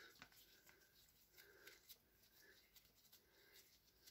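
Near silence, with faint scattered clicks of a hand screwdriver turning a screw in a plastic power-tool housing.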